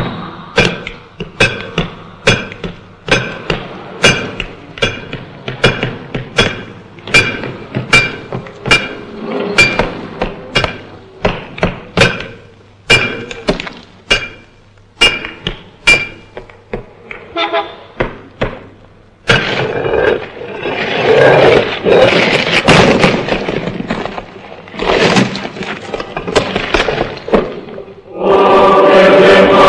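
Sharp ringing metal strikes, about two a second, for most of the first two-thirds. After that comes a dense crashing and crumbling din of demolition, and a choir starts singing near the end.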